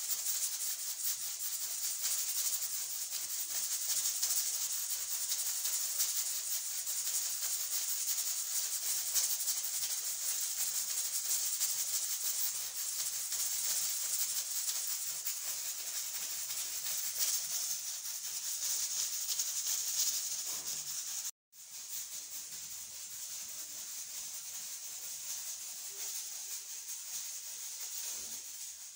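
Stovetop pressure cooker hissing steadily as steam escapes from its vent valve under pressure. The hiss cuts out for a moment about two-thirds of the way through, then carries on a little quieter.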